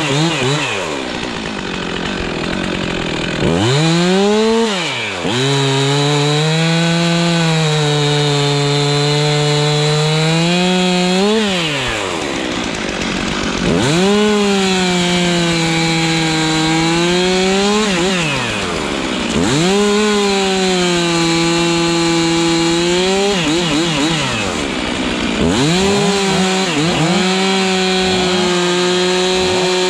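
Two-stroke chainsaw revved repeatedly to full throttle and held there for several seconds at a time while cutting through wood, dropping back toward idle between about four runs.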